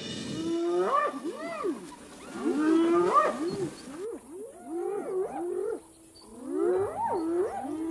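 Spotted hyenas calling: several overlapping whooping cries that swoop up and down in pitch, coming in four runs of about a second and a half each, with short gaps between.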